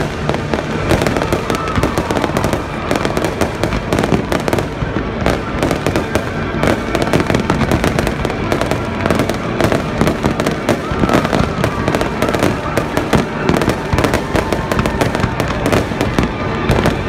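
A fireworks display in full barrage: a continuous, dense run of bangs and crackling reports with no pause, from rockets and comets fired up in rapid succession and shells bursting overhead.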